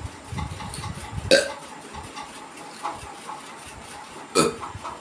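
A woman burping loudly twice, about three seconds apart: short belches brought up after drinking plain water.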